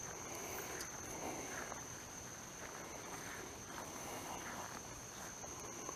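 Night insects, such as crickets, keep up a faint, steady high-pitched drone, with soft scattered rustles of footsteps through grass and leaf litter.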